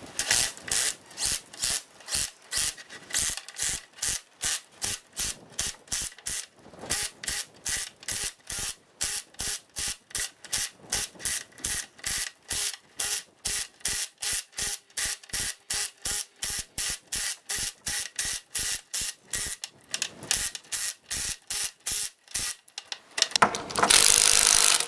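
Cordless impact driver with a socket tightening the bolts on a hydraulic hose repair clamp, hammering in short repeated bursts at about two to three a second as the bolts are pulled down evenly, then running continuously for about a second near the end.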